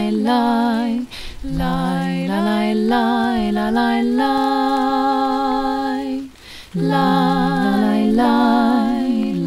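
A woman singing alone and unaccompanied: a slow melody of long held notes with vibrato, broken by a short breath about a second in and again a little after the middle.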